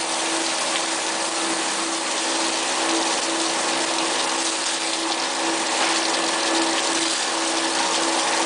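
Quench water spraying steadily in a CNC induction hardening machine, with the pump running and a steady hum underneath.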